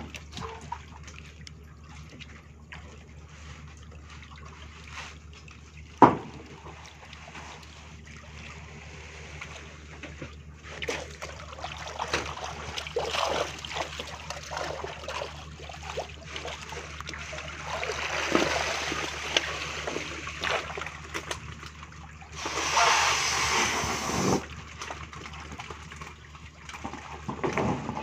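Water splashing and sloshing as harvested tilapia are scooped out of a net cage with hand nets, over a steady low hum. A single sharp knock comes about six seconds in, and a louder rush of noise lasts about two seconds near the end.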